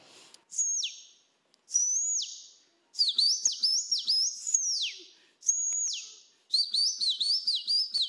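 A man's mouth-whistled imitation of the pássaro-preto-soldado's song. Long high whistles that drop sharply at the end alternate with quick runs of rising-and-falling notes.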